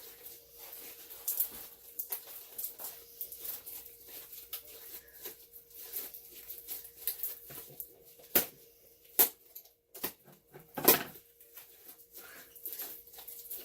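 Homemade slime being kneaded and squished by hand: a steady run of small, irregular sticky crackles and squelches, with a few louder sharp pops or clicks about two-thirds of the way through.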